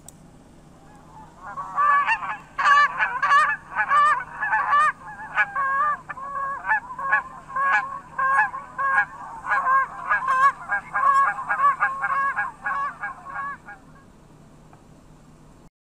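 Flock of Canada geese honking, many calls overlapping in quick succession, starting about a second and a half in and dying away a couple of seconds before the end, over a faint steady hum.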